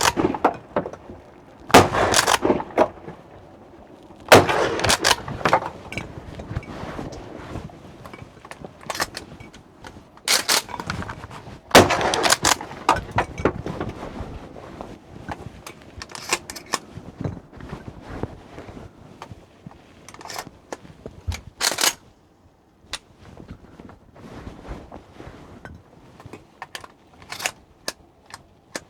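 Mossberg Maverick 88 pump-action shotgun fired at ducks: four loud shots in the first half, each trailing off, the last two close together. Lighter sharp clicks and clacks follow later on.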